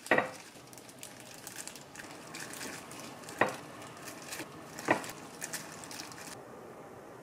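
Disposable plastic glove crinkling while rice balls are handled and set into a ceramic dish, with three sharp knocks as they are put down, the loudest right at the start. The crinkling stops about six seconds in.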